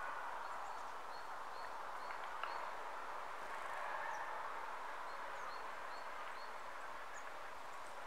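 Small songbirds calling: short, high chirps repeated about every half second, with a few higher rising notes, over a steady rushing background.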